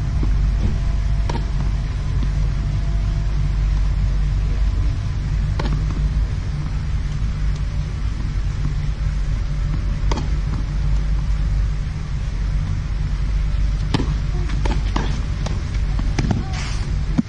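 Tennis ball struck by rackets and bouncing on a clay court: single sharp pops a few seconds apart, then several in quick succession near the end as a rally is played. A steady low rumble underlies it throughout.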